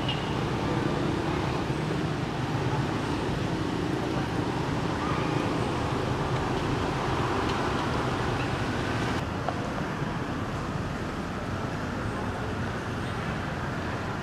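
Steady outdoor background rumble, mostly low, with no distinct event standing out; the higher hiss above it drops away abruptly about nine seconds in.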